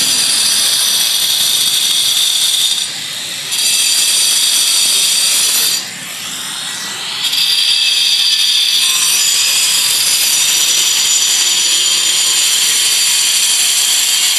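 A power tool running with a steady high-pitched whine, easing off briefly twice, about three seconds and about six seconds in.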